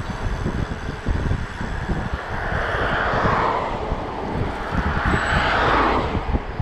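Wind buffeting the microphone of a handlebar camera while cycling, with tyre and engine noise of two cars passing, each swelling and then fading, about three seconds in and again just after five seconds.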